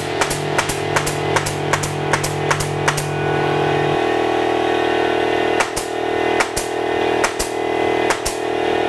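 Sharp cracks of a pneumatic 18-gauge brad nailer firing brads into a pine 2x4: a quick, irregular run of shots over the first three seconds, then a few more after a pause of about two seconds. Background music with sustained chords plays throughout.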